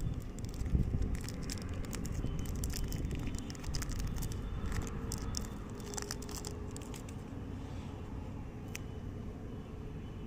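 Chocolate bar wrapper being crinkled and torn open: a quick run of crackles that thins out after about seven seconds, over a steady low rumble.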